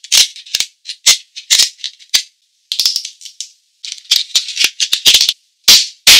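King crab shell cracking: crisp crunches as kitchen shears snip through the spiny leg shell, about two a second at first. A denser run of crackling comes about four seconds in as the body shell is pried apart by hand, then knife cuts crunch through the crab body near the end.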